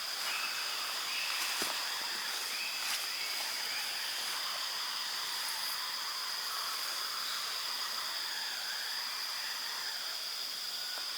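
Forest ambience: insects keep up a steady high-pitched drone, with short repeated calls from small animals and a couple of faint clicks about a second and a half and three seconds in.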